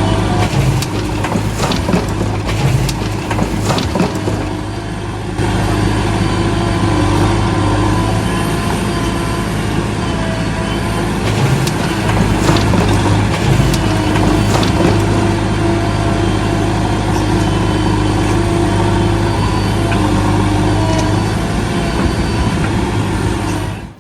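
A machine running steadily with a low engine-like hum, with scattered clicks and knocks over it.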